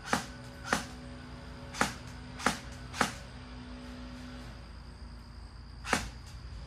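Airsoft SCAR-L electric gun firing single shots on semi-auto, each a short sharp snap of the gearbox cycling: five shots at uneven intervals in the first three seconds, then one more about six seconds in.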